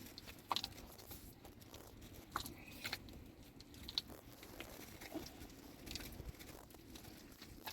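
Faint, irregular crunching and clicking.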